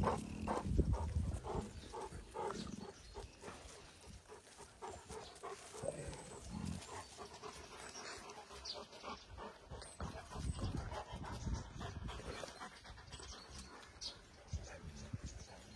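Several large dogs playing, with dog sounds and panting, loudest in the first second or so. After that it is quieter, with scattered scuffs and small clicks.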